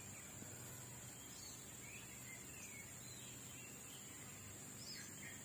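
Faint outdoor ambience: a steady high-pitched insect drone, with a few short bird chirps scattered through it.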